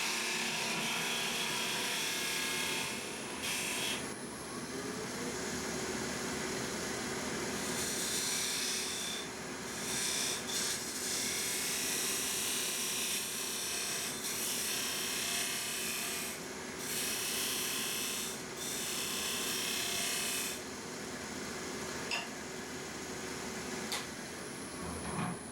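Wood lathe running while a turning tool cuts into a spinning walnut piece in repeated passes. The cuts come as spells of scraping hiss a few seconds long, with brief pauses between them.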